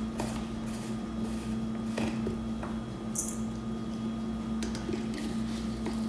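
Metal spoon stirring raw chicken and spices in a stainless steel bowl: scattered light clinks and scrapes, with a brief hiss about three seconds in, over a steady low hum.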